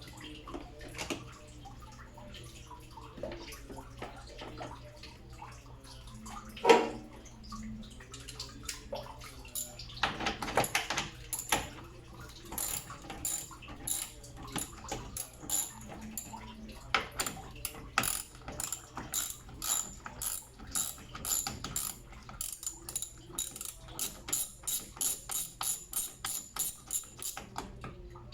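Hand ratchet clicking in bursts as fasteners are turned during radiator work, the clicks falling into a fast, even run near the end. One louder metallic knock about seven seconds in.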